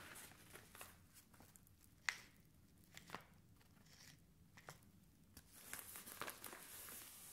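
Faint crinkling and rustling of a kraft-paper padded envelope being handled close to the microphone, with sharp paper clicks about two and three seconds in. The crinkling grows denser from about five and a half seconds on.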